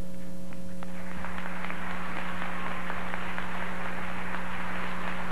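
Audience applauding, beginning about a second in and continuing steadily, over a constant electrical hum from the sound system.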